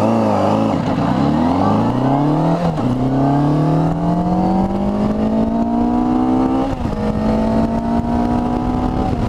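1997 Yamaha YZF600R's inline four-cylinder engine under hard acceleration through the gears, its note climbing steadily then dropping at upshifts about 2.7 and 6.8 seconds in, heard through a shorty exhaust with a single baffle. Wind noise on the microphone runs underneath.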